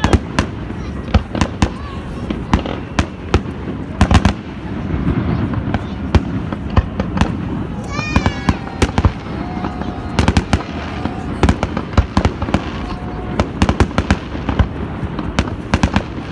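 Festive fireworks salute: many sharp bangs and cracks of bursting shells in quick, irregular succession over a continuous rumble.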